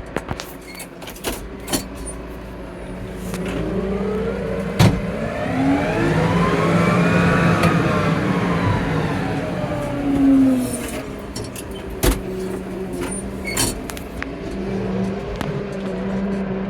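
Tractor engine running steadily while scraping the yard, with scattered knocks and rattles. In the middle its pitch rises over a few seconds and then falls back.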